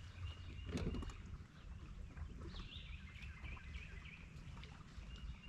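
Small birds chirping and calling in short, repeated notes over a steady low rumble, with a single sharp knock about a second in.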